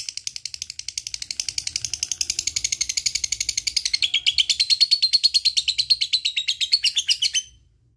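Lovebird's ngekek: a long chattering trill of rapid, evenly spaced high notes, about ten a second, held without a break, that stops abruptly about seven and a half seconds in.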